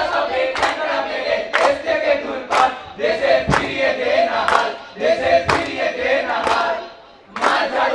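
A mixed group of young voices singing or chanting a song in unison, with a sharp beat about once a second. The singing breaks off briefly near the end, then starts again.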